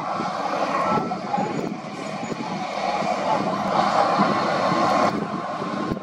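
Komatsu D60P crawler bulldozer's diesel engine working as the blade pushes rock and dirt, a dense, noisy din that grows louder through the middle and drops off abruptly about five seconds in.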